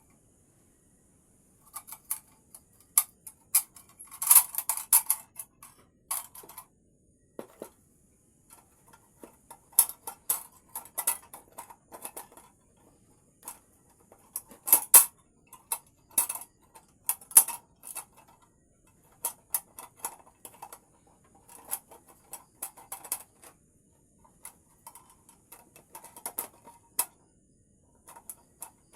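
Irregular light clicks and taps of hard objects, singly and in quick clusters with short pauses between, with the loudest groups about four seconds in and near fifteen seconds.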